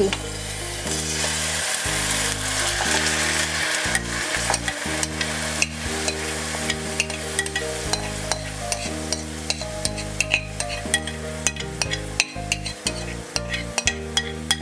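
Yogurt-marinated chicken pieces frying in hot olive oil in a nonstick pan: a sizzle, loudest in the first few seconds after the chicken goes in, then settling to a steadier sizzle with scattered pops. Background music plays underneath.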